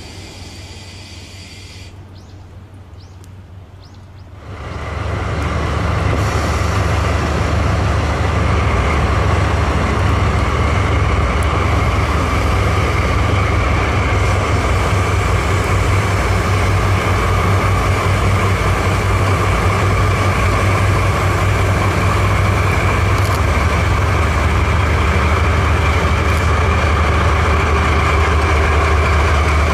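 The last tank wagons of a freight train roll past. After a brief quieter gap, a DD51 diesel-hydraulic locomotive double-headed with a DF200 diesel-electric comes in and passes close by. Their diesel engines run loudly as a deep steady rumble with a steady whine above it.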